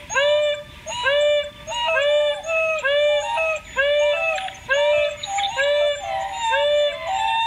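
African wild dogs (painted wolves) calling as a group: a fast run of short, high-pitched calls, each rising and dipping in pitch, about two a second, with several dogs overlapping.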